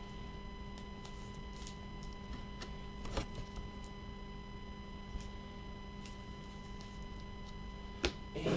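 Quiet room tone with a steady electrical hum and whine, broken by a few faint clicks.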